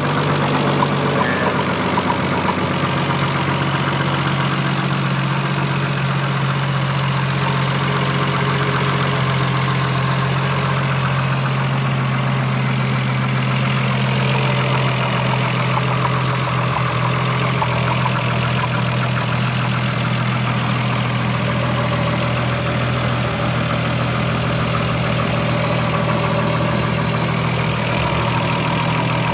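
Toyota Supra's 7M-GTE turbocharged inline-six engine idling steadily, with a knock that the owner suspects could be rod knock.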